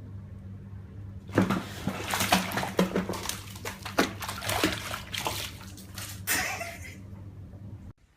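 Water splashing and sloshing in irregular bursts, starting about a second in and dying away near the end, over a steady low hum that cuts off suddenly.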